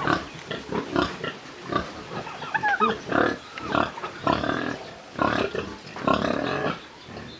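Pigs grunting, a quick run of short grunts one after another, with a few short high chirps about two and a half seconds in.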